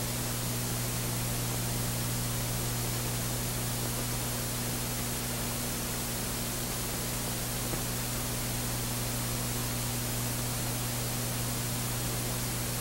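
Steady hiss with a low electrical hum beneath it: the background noise of a 1940s film soundtrack.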